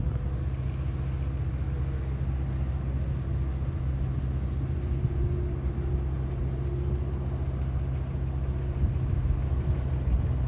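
Steady low mechanical rumble with a constant low hum, unchanging throughout.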